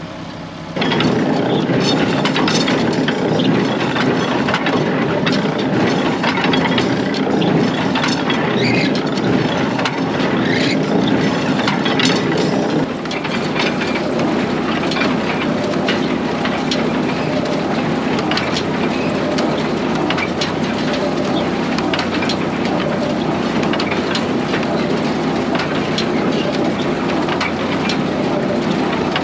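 Small square hay baler running behind a tractor: steady machine and engine noise with many irregular cracks and crunches as hay is packed.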